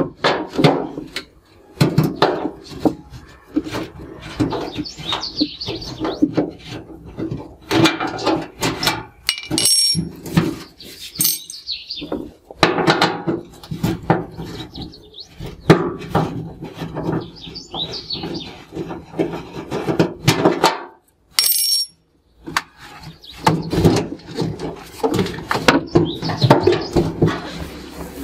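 Lower front panel of a Whirlpool front-loading washing machine being worked loose by hand: a long string of clicks, knocks and scraping, with a few short high squeaks.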